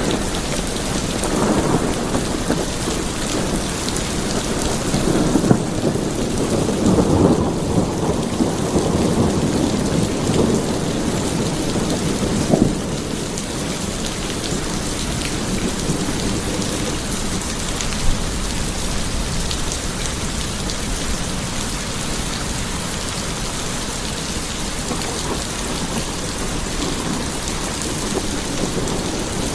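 Steady rain falling, with rolling thunder rumbling through the first half before it dies away, and a few sharp cracks.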